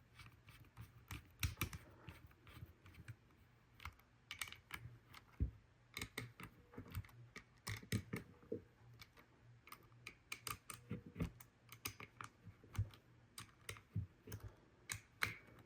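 Faint, irregular small clicks and taps of a Cobratec out-the-front automatic knife being reassembled and tightened by hand, its small metal parts and screws clicking, a few times a second.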